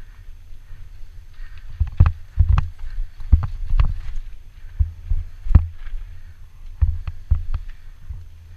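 Banshee Darkside downhill mountain bike ridden fast over a rough dirt trail: steady wind rumble on the microphone, with a run of sharp knocks and clatter from the bike and suspension hitting bumps, starting about two seconds in.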